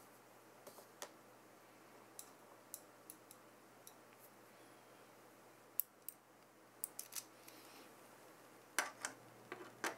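Scattered small, sharp clicks and taps from hands handling CPU cooler mounting hardware over a motherboard, with a few clicks close together about six seconds in and again near the end.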